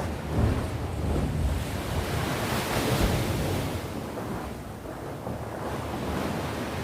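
Sea waves breaking and washing on the shore, swelling to a louder rush of surf about halfway through and then easing off, with wind rumbling on the microphone.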